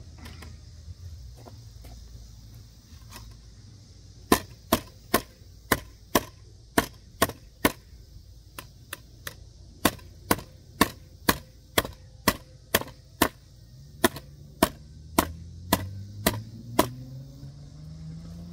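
A hammer striking an OTF knife driven into wood in a nailing test: a long run of sharp wooden knocks, two to three a second, with a brief lull midway.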